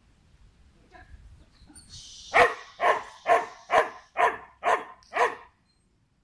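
A dog barking seven times in a steady run, about two barks a second, starting a couple of seconds in.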